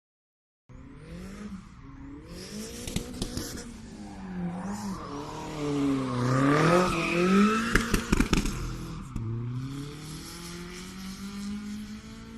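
Race car engine revving up and down repeatedly as it drifts, with tyre squeal and a few sharp cracks, loudest about six to eight seconds in. It starts after a brief moment of silence.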